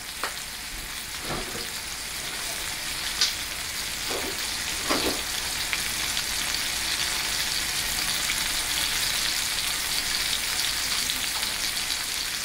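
A thick ribeye steak sizzling in hot olive oil in a frying pan, a steady crackling hiss that grows slowly louder as the pan heats, with a few short pops and soft knocks.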